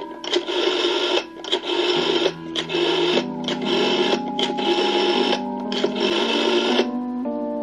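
Telephone rotary dial being turned and whirring back again and again as a number is dialled: a rasping mechanical whir in a string of short runs with brief gaps, stopping about a second before the end. Soft background music with sustained keyboard notes plays underneath.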